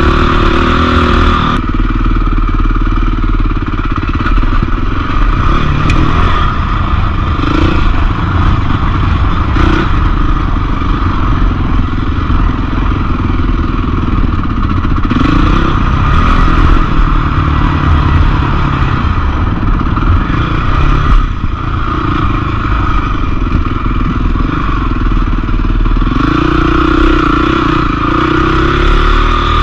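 Motorcycle engine running throughout on a trail ride, its pitch rising and falling several times as the throttle opens and closes.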